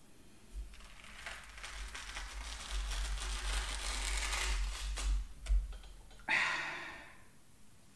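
Tea towels rustling and scrunching as the tough skin of a Dover sole is peeled off the flesh by hand, building over about five seconds with a low rumble underneath. A sudden louder rush of noise about six seconds in.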